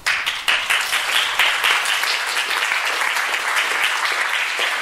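Lecture audience applauding, a dense steady patter of many hands clapping.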